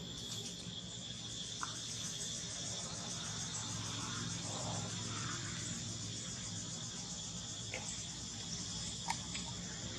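Steady chorus of insects, an even high-pitched buzzing, with a few faint clicks over it.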